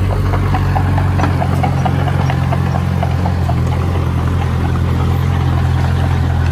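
Heavy diesel earthmoving machinery running steadily, its engine giving a deep, even hum. A light rhythmic clatter of about four ticks a second runs over it for roughly the first half, then fades.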